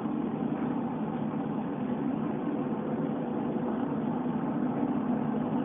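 A steady low hum under a faint hiss, holding unchanged throughout.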